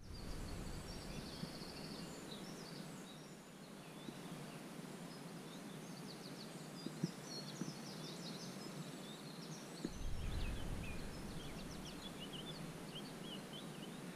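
Songbirds singing and calling in a dawn chorus: many short chirps and trills over a steady hiss. About two-thirds of the way through, a low rumble joins in.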